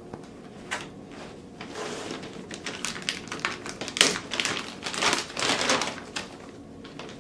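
Thin clear plastic bag crinkling and rustling as hands pull and bunch it, in irregular bursts with a sharp crackle about four seconds in.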